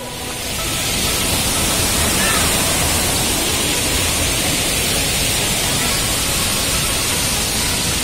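Waterfall: a loud, steady rush of falling water that swells over the first second and then holds even.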